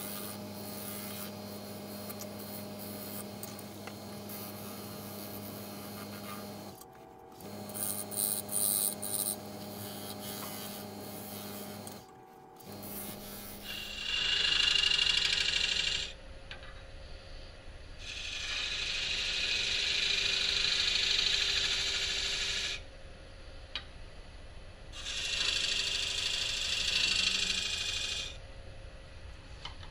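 Wood lathe running with a steady motor hum while a hand-held turning tool cuts into a spinning figured-maple blank. In the second half come three louder stretches of hissing cutting noise, a few seconds each, as the tool is pushed into the wood.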